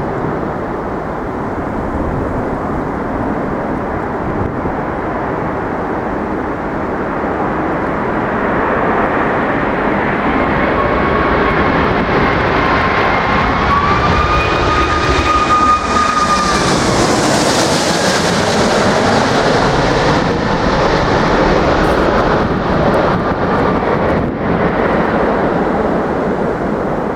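Boeing 777 jet engines on landing approach: a rushing roar with a whine that rises as the airliner closes in, is loudest a little past halfway through, then fades as it passes. Gusty wind buffets the microphone throughout.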